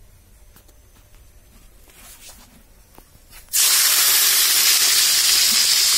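Chopped onions frying in hot oil in a steel wok: a loud sizzle that starts suddenly about three and a half seconds in. Before it there are only a few faint clicks.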